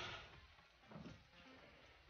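Near silence, with a faint soft thump about a second in.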